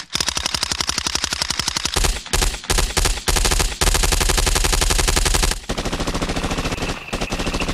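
Machine-gun fire sound effect: rapid bursts of shots with short breaks between them, the longest and heaviest burst running from about four to five and a half seconds in.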